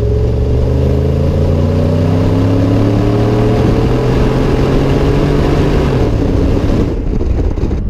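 Ford F-150's 5.0-litre V8 exhaust heard at the tailpipe under acceleration, its note climbing steadily in pitch, then falling away about six seconds in. Tyre and wind rush runs underneath.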